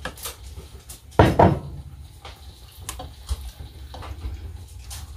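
A silicone spatula stirring thick chili in a stainless steel pot, with a few light knocks against the pot's side. One short louder sound comes about a second in.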